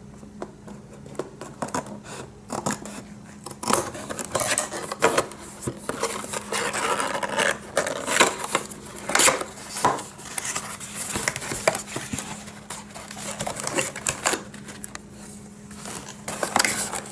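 Scissors snipping through the plastic seal on a paperboard retail box, then the box being handled and its flaps opened: irregular snips, clicks, scrapes and paper rustling, over a faint steady low hum.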